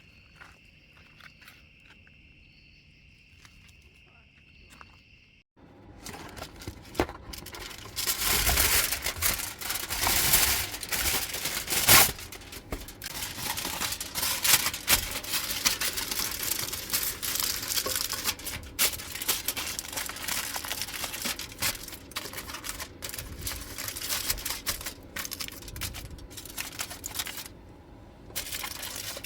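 A steady high insect trill over near quiet for the first five seconds, then suddenly loud crinkling and tearing of plastic packaging, with irregular crackles and clicks, as gear is unpacked.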